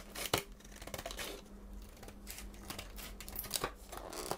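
Scissors cutting into a stiff plastic blister pack, followed by irregular clicks and crinkling as the plastic packaging is pulled open.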